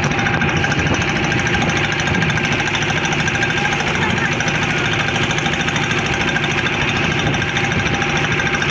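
Motorised fishing boat's engine running steadily at a constant speed with a fast, even pulse, loud and close.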